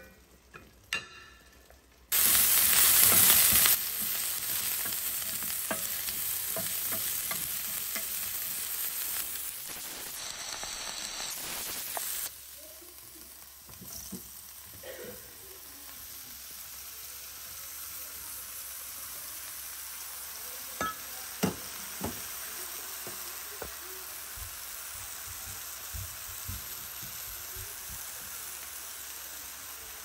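Food frying and sizzling in a pan: a loud sizzle starts about two seconds in and drops to a softer steady sizzle of sliced mushrooms in a frying pan about twelve seconds in. A few sharp knocks in the second half.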